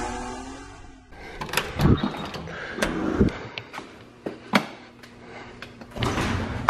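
The tail of an engine-rev sound effect from the logo intro fades out over the first second. Then comes a run of irregular sharp clicks and knocks, the handling noise of a handheld camera being picked up and moved.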